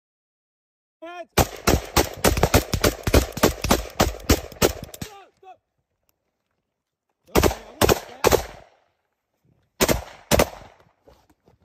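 Close-range small-arms gunfire: about four seconds of rapid shots in quick succession, then after a pause of about two seconds three shots, and then two more. A man shouts just before the first shooting starts.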